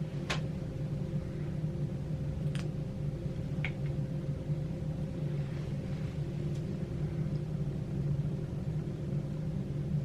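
Steady low machine hum with a faint steady higher tone, broken by a few light clicks.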